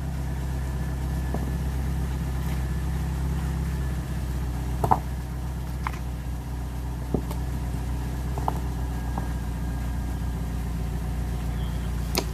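Off-road vehicle's engine idling steadily with a low hum, with a few short sharp knocks and clicks on top, the loudest about five seconds in.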